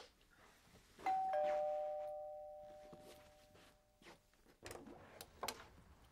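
Two-note doorbell chime, a higher tone then a lower one, ringing out and fading over about three seconds. Near the end come a few sharp clicks and knocks as the front door's latch is worked and the door is pulled open.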